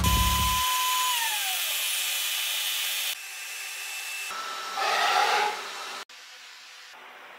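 High-pitched whine of a CNC engraving spindle. About a second in its pitch falls away as the spindle spins down, and after a cut there is more steady whine with a short hiss near the middle.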